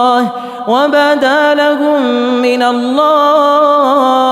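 A male voice reciting the Quran in melodic tajwid style, drawing out long ornamented notes with a short breath about half a second in.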